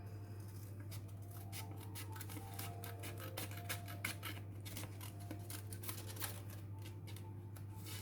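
Scissors cutting along a folded line in a sheet of paper: a string of faint, irregular snips with paper rustling, over a steady low hum.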